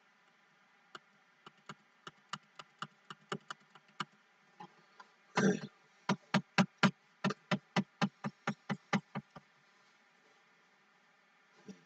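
Clicking at a computer: a run of faint, evenly spaced clicks about three a second, a short louder knock about halfway, then a run of louder clicks about four a second that stops about three-quarters through.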